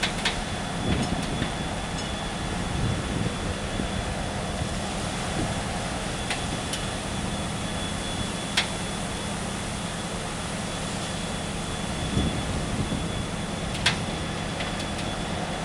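Steady low drone of the self-unloading lake freighter Adam E. Cornelius's engines as the ship moves slowly past, with a couple of brief sharp clicks.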